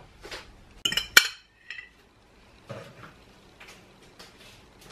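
A metal utensil clinking against a glass bowl: three sharp clinks about a second in, followed by a brief ring, then a few fainter taps.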